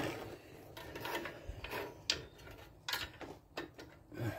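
Light metal clicks and scrapes as a spring clip is worked into place on a Ford Expedition front brake, with several separate clicks in the second half.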